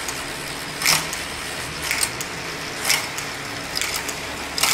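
Road bike drivetrain with the chain running over the rear cassette as the cranks are turned by hand. Sharp shift clicks come about once a second as the cable-operated rear derailleur moves the chain up onto larger sprockets. The freshly adjusted derailleur is shifting cleanly and precisely.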